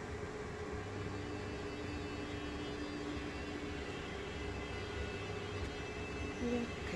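Steady hum and hiss of an electric fan running, with a few faint held tones in the drone.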